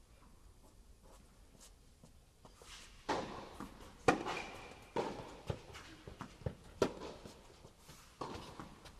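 A tennis ball bounced repeatedly on an indoor court before a serve: a string of sharp knocks about half a second apart, echoing in the hall, starting about three seconds in, the loudest about a second later.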